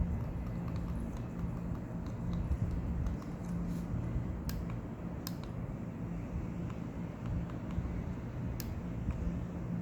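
Logitech M590 silent mouse buttons being pressed, giving a handful of soft, muted clicks at irregular intervals over a steady low background hum.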